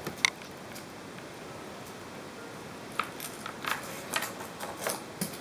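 Fish-shaped crackers and a ceramic bowl clicking and clinking as a cat gets at them: two sharp clicks right at the start, then a run of light, irregular taps over the last couple of seconds.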